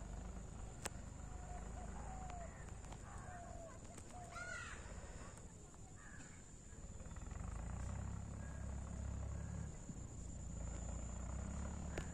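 Outdoor ambience: a few short bird calls in the first half, with one harsher call about four and a half seconds in, over a steady high-pitched tone and a low rumble that grows stronger in the second half.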